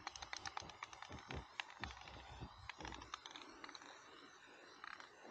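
Aerosol spray-paint can spraying with a faint steady hiss, along with many small irregular clicks and a few soft low thumps.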